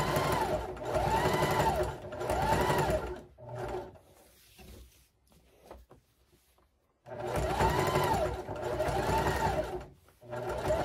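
Singer electric sewing machine stitching the coiled fabric strips of a jelly roll rug, running in short bursts that each speed up and slow down as the foot pedal is pressed and eased. The stitching stops for about two seconds midway, then starts again.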